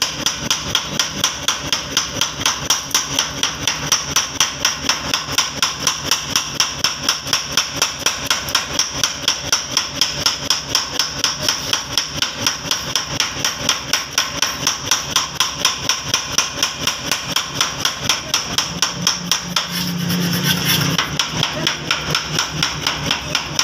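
A 10 kg power hammer's ram pounding a red-hot steel bar on the anvil in a steady, fast run of metal-on-metal blows, about four to five a second, as the axle steel is drawn out into a chisel. About 20 seconds in, a lower hum briefly joins the blows.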